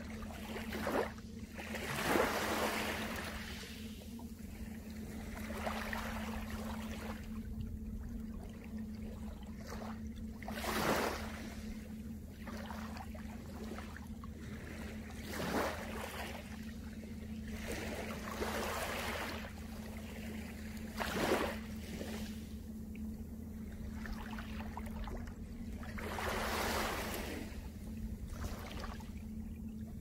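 Small waves of a calm sea breaking gently on a pebble beach: a soft wash of water swells and fades every few seconds, about eight times, over a steady background of surf.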